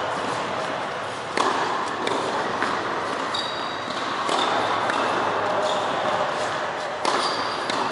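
Tennis balls being hit by rackets and bouncing on an indoor hard court: several sharp pops, a second or more apart, that echo in the large hall over a steady background hiss.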